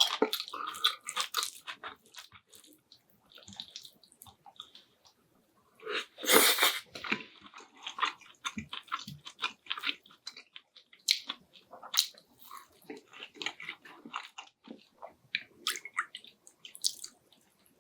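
A person chewing and biting food, with many small wet clicks and crunches, and one louder burst of noise about six seconds in.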